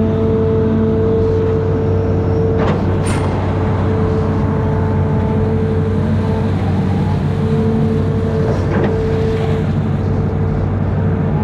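Amphibious excavator's engine running steadily with a constant high tone over its drone, and two sharp knocks about three seconds in.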